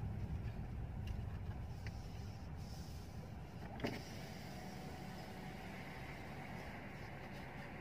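Low, steady rumble of a Mercedes-Benz S-Class moving slowly, heard from inside the cabin, with a few light clicks, the clearest a little under four seconds in.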